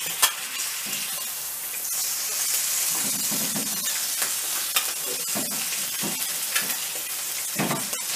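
An egg, salami and smoked meat sizzling in oil in a frying pan, with bread frying in a second pan. The sizzle grows brighter about two seconds in, and a wooden spatula taps and scrapes the pan now and then.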